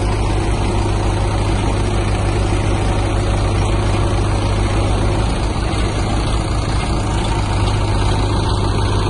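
Diesel engines of tractors and a backhoe loader running steadily, a continuous low engine hum that holds even throughout.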